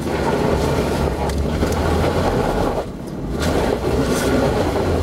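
Jeep Wrangler engine running with a steady low drone, heard from inside the cabin. The sound dips for a moment about three seconds in.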